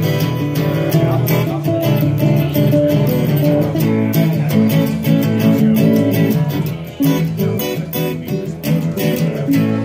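Acoustic guitar strummed in a steady rhythm with a banjo picking along: an instrumental break in a folk song, with no singing.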